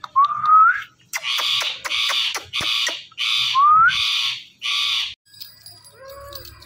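Indian ringneck parrot screeching: a run of loud harsh squawks with two short rising whistles among them, stopping about five seconds in.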